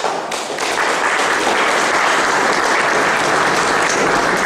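Audience applauding, starting suddenly and holding steady throughout.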